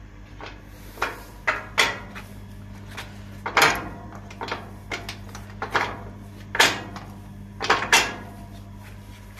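Corrugated steel rolling shutter rattling and clanking as it is handled at its bottom edge during unlocking: a series of irregular sharp knocks over a steady low hum.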